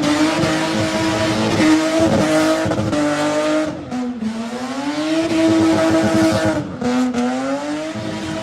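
Lexus IS200's straight-six engine held at high revs with tyres squealing under wheelspin. The revs dip briefly twice, about halfway through and again near the end, then climb back.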